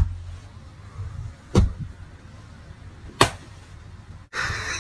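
Three sharp hand slaps about a second and a half apart, hands being slapped down one on top of another on a blanket-covered cushion, over a low hum.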